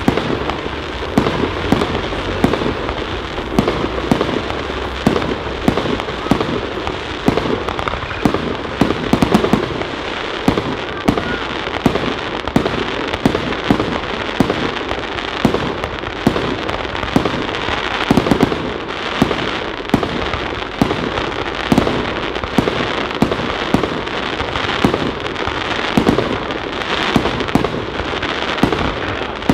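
Royal Fireworks 'Golden Power' fireworks cake firing shot after shot. The bursts come several a second and overlap into dense, continuous popping and crackling.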